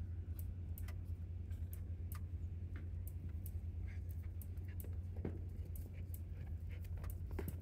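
Cattle eating grain: irregular sharp crunches and clicks, several a second, over a steady low hum.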